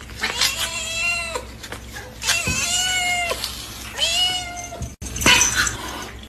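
Domestic cat meowing: three long, drawn-out meows, each sliding down in pitch at the end. Near the end a short, harsh, noisy burst, the loudest sound here.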